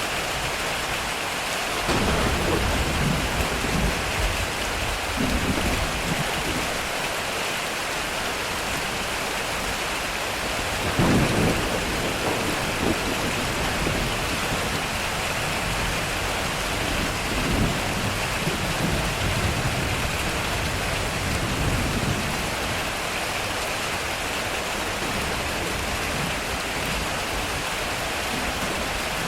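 Heavy rain falling steadily on a metal roof, with thunder rumbling from about two seconds in. There is a louder, sharper clap about eleven seconds in, then rolling rumbles that die away after about twenty-two seconds.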